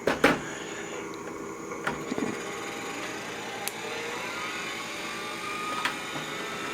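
Hard drive of an IBM PS/2 Model 25 286 running just after spin-up: a steady whir with a few sharp ticks and a faint slowly rising tone. It sounds like it's hitting something, and the owner thinks it has rust in it and the drive is failing.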